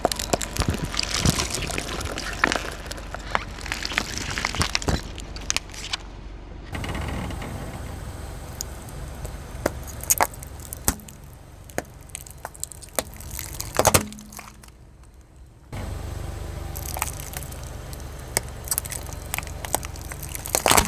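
A car tyre rolling over and crushing crunchy objects: many sharp cracks and snaps over a low rumble, breaking off and starting again a few times.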